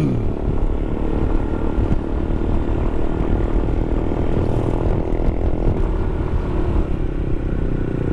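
SYM Cruisym 250 scooter's single-cylinder engine running steadily at cruising speed, heard from the rider's seat with heavy wind rumble on the microphone.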